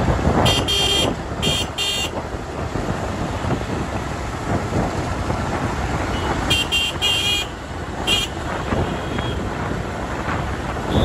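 Road and wind rush from riding in traffic, with short vehicle horn toots: three quick ones in the first two seconds, and a second run of several toots between about six and a half and eight seconds in.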